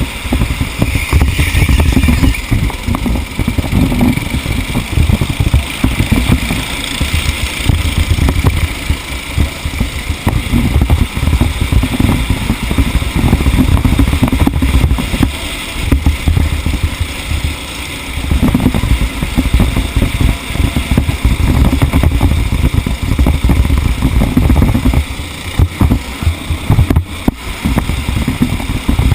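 Vehicle engine running under way, with a heavy low rumble that rises and falls as it is driven.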